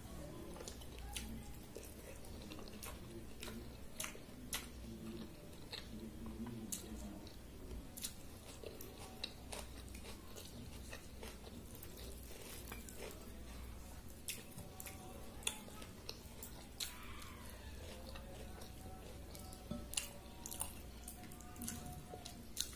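Fingers squishing and mixing soaked rice in its water, with chewing between handfuls; many short, sharp wet clicks scattered throughout over a low hum.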